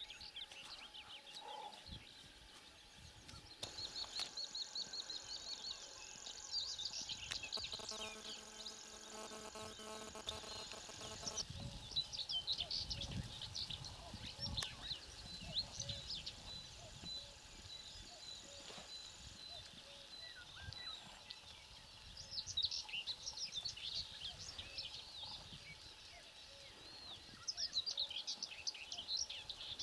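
Small birds chirping and singing in repeated bursts over faint outdoor background noise. A steady high whine runs through the first third, and a steady low hum with several tones sounds for a few seconds about a third of the way in.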